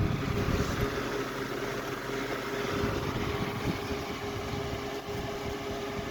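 2006 Holmes Blizzard HANF76BLZ two-speed electric fan running on high: a steady rush of air with a constant motor hum.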